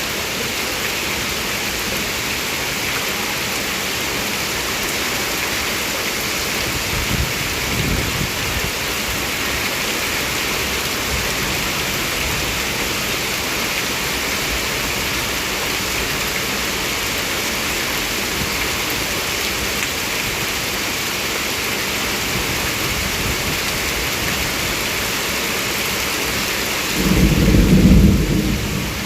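Heavy rain pouring steadily. A brief low rumble comes about seven seconds in, and a louder low rumble comes near the end.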